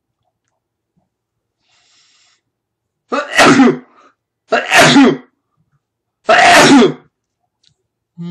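A man sneezing three times in a row, starting about three seconds in, the sneezes about a second and a half apart and very loud.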